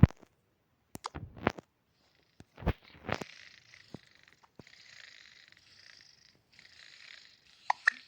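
A domestic cat purring close to the microphone, in breath-long stretches with short gaps. A few sharp knocks and clicks come in the first three seconds.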